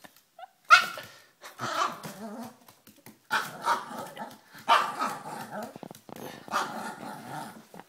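Small Maltese-Bichon cross dog barking, about five gruff barks or short bark bouts a second or so apart.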